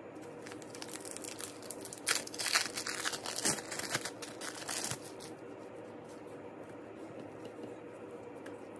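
Thin plastic wrapper crinkling and rustling as a wrapped cheese slice is peeled open by hand, in a run of crackly rustles lasting about four seconds, loudest in the middle, then stopping.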